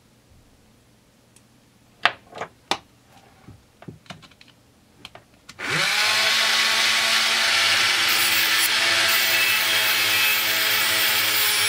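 Small metal parts click and tap a few times, then about halfway through a Marathon dental lab micromotor spins up with a short rising whine and runs steadily. A cutoff wheel on it grinds a flat into the steel shank of a carbide burr, adding a high grinding hiss over the motor's hum.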